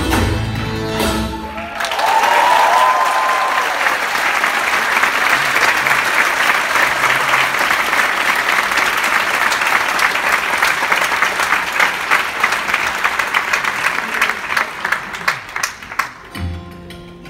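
A live Celtic folk band with banjo, fiddle and guitar ends its tune about two seconds in, and the audience breaks into loud applause with a rising whistle. The clapping thins out after about fourteen seconds as the band starts a new piece near the end.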